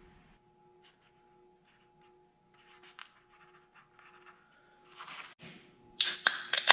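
Pen scratching on paper as notes are written, faint, starting about two and a half seconds in, over a faint steady hum. Near the end comes a burst of loud, sharp clicks and taps.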